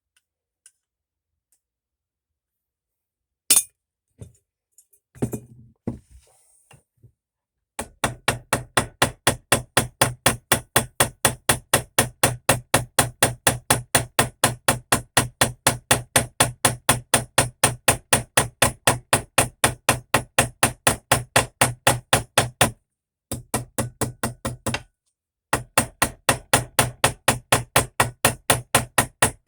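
Ball-peen hammer tapping metal on metal, peening over the pin of a pocket knife on a bench-vise anvil. It comes as a steady rapid run of light blows, about four a second, starting several seconds in after a single click and some handling, with two brief pauses near the end.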